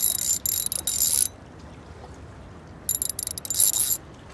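Ultralight fishing reel running in two bursts, a high mechanical whir with fine clicking: a longer one ending about a second in, then a shorter one about three seconds in.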